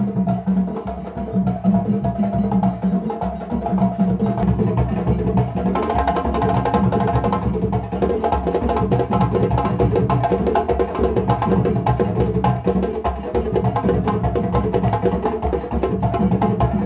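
Djembe drums struck by hand in a fast, dense rhythm, with sharp slaps and deeper bass strokes.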